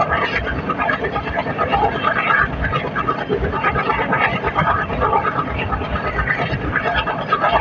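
Passenger train running along the line behind a WDM-3A diesel locomotive, heard on board: a steady, loud rumble and rattle of the coach and wheels on the rails.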